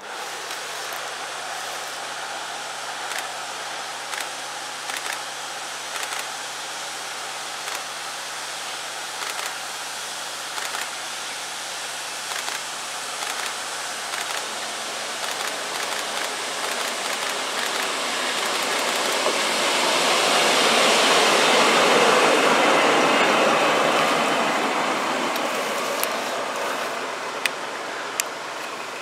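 Diesel shunting locomotive running light and passing by. Its engine and wheel noise rise to a peak about 22 seconds in, then fade as it moves away.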